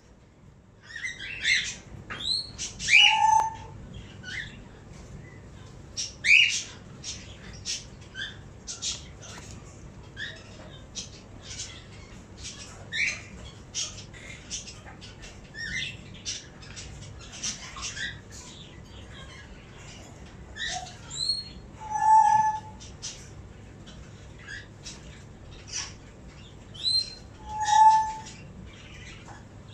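A 25-day-old Indian ringneck parakeet chick begging while it is syringe-fed: a rapid, uneven run of short squeaky chirps, with a few louder squawks a few seconds in and twice near the end.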